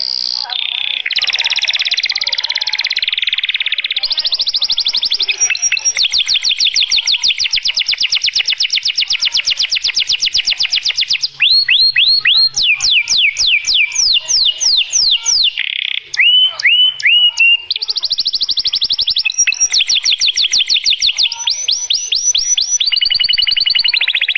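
Domestic canary singing one long unbroken song of fast, even trills. About halfway through it switches to a run of slower notes that sweep down in pitch, gives a few slurred notes, then goes back to rapid trills.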